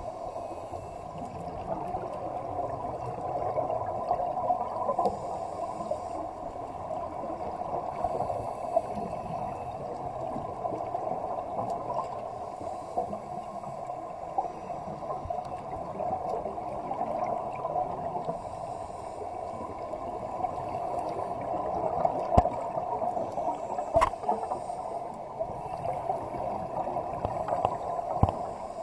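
Underwater ambience at a scuba dive: a steady, muffled wash of water noise with the gurgle of divers' exhaled regulator bubbles. A few sharp clicks come late on.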